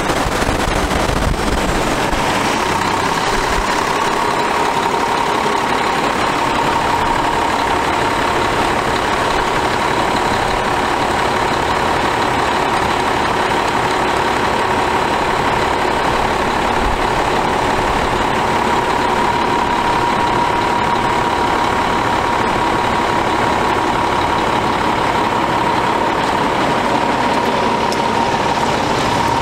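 Cummins ISM inline-six diesel engine of a heavy truck idling steadily, with a thin, steady high whine over the engine noise.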